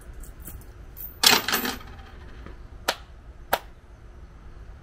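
A coin offering clattering into the wooden offering box at a shrine, then two sharp hand claps about half a second apart, the two claps of shrine worship.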